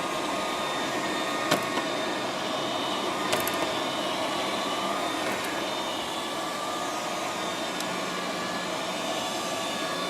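Liectroux B6009 robot vacuum cleaner running steadily, a constant whir from its suction motor and brushes, with two brief knocks, one about a second and a half in and another about three and a half seconds in.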